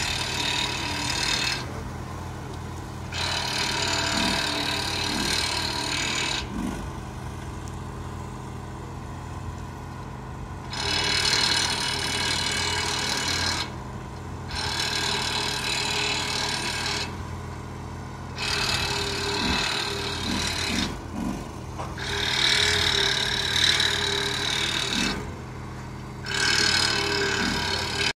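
Machinery running with a steady low hum, while a harsher, higher mechanical noise starts and stops in stretches of a few seconds, about seven times.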